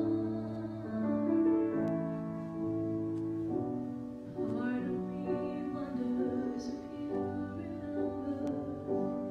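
A woman singing a slow solo through a microphone, holding long steady notes over instrumental accompaniment.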